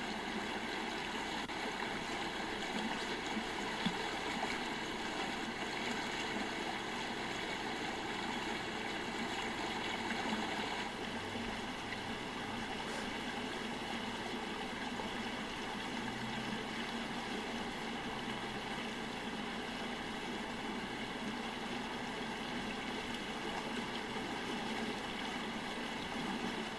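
A steady, even rushing noise that stays unchanged throughout.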